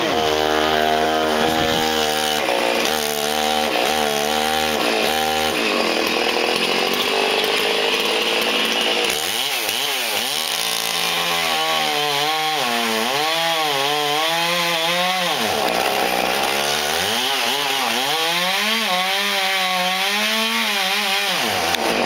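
Chainsaw engine running under load, revving up and falling back again and again as it cuts into a large log, its pitch swooping every second or two.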